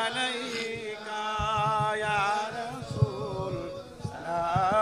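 Men singing a devotional salam to the Prophet, drawing out long melodic phrases with wavering held notes.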